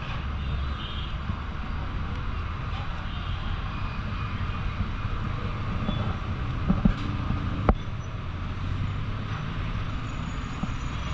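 Steady street traffic rumble, with two sharp knocks a little under a second apart about seven seconds in.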